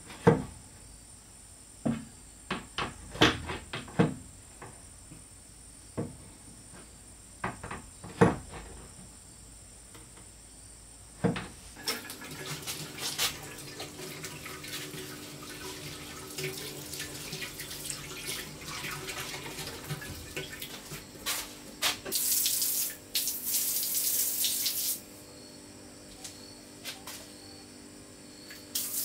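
Sharp clicks and knocks as pipe fittings are worked under a ceramic wash basin. About twelve seconds in, the basin tap is turned on and water runs steadily into the basin. Near the end come louder hissing bursts of water spray, from a toilet's handheld sprayer.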